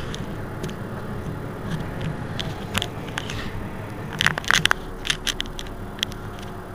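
Mercedes-Benz Citaro C2 Euro 6 city bus's diesel engine idling while the bus stands still, a steady low rumble. A cluster of sharp clicks comes about four to five seconds in.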